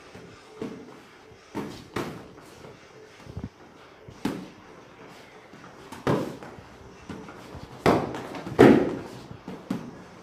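Punches and kicks landing on boxing gloves and shin guards during kickboxing sparring: irregular thuds and slaps, with the two loudest hits close together about eight seconds in.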